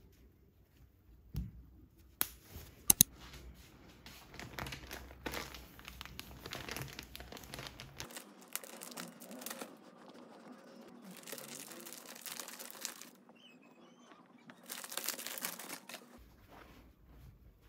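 A few sharp clicks of plastic snap buttons on a cotton duvet cover being pulled apart. Then plastic packaging crinkling and tearing as it is cut open and a folded fitted sheet is slid out of it.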